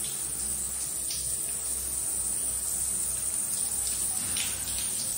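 Shower water running in a steady hiss, with a few faint splashes.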